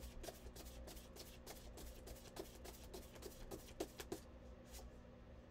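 A deck of tarot cards shuffled by hand: a steady run of soft card slaps, about three a second, with two slightly louder ones a little after the middle.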